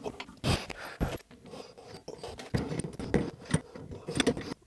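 Irregular scraping, rubbing and clicking as plastic threaded fittings of toilet water supply lines and a T-adapter are handled and screwed together by hand.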